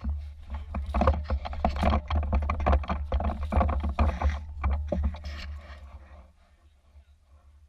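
Handling and movement noise on a rifle-mounted action camera: irregular knocks, rustling and a heavy low rumble as the player moves with the airsoft carbine, dying down about six seconds in.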